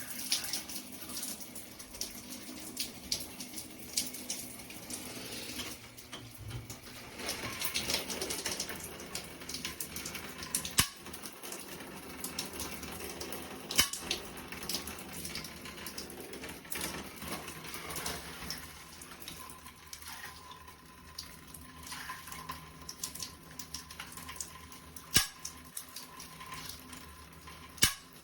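Faint running water with scattered small clicks and clatters, like work at a sink, with a few louder knocks.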